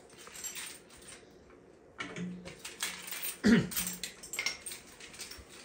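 Scattered clicks and knocks, with two short low squeaks, about two and three and a half seconds in, the second one falling in pitch.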